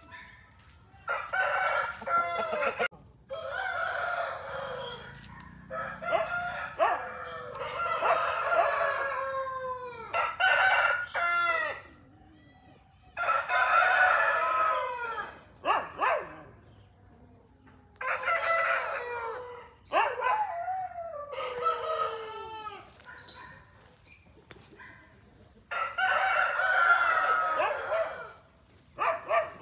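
Aseel roosters crowing, one long crow after another with short gaps between them, about eight crows in all.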